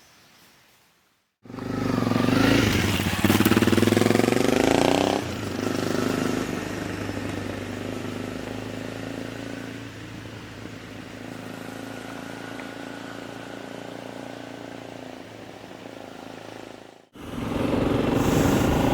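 Honda CRF300 Rally's single-cylinder engine riding along. It starts abruptly after a second and a half of quiet and rises in pitch under acceleration for a few seconds, then settles into a steadier, quieter run. Near the end it cuts out briefly and comes back loud.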